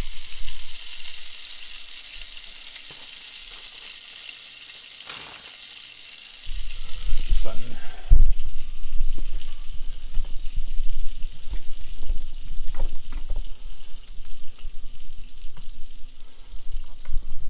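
Perch roe frying in butter in a pan, a steady sizzling hiss. About six seconds in, loud rumbling and knocking from the phone being handled takes over, with many clicks and scrapes at the pan.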